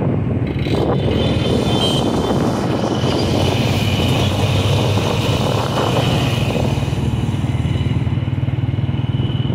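Motorcycle engine running steadily while riding through street traffic, heard from on the bike, with a continuous low drone under road and air noise.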